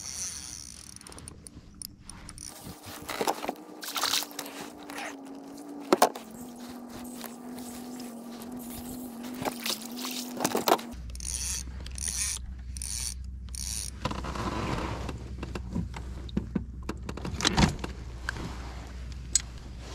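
Spinning reel cranked steadily to bring in a hooked fish, its gears giving a steady whirr that sags slightly in pitch, with sharp knocks from the gear. The whirr stops about eleven seconds in, and knocks and clatter follow as the landing net and the bass come aboard the kayak.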